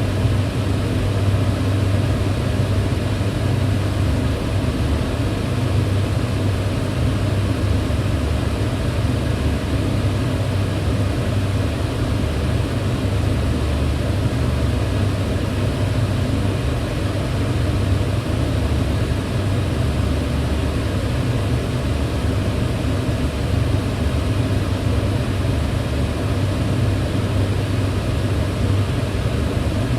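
Kitchen range hood fan running steadily: a constant whooshing rush of air over a deep, even motor hum, with no changes.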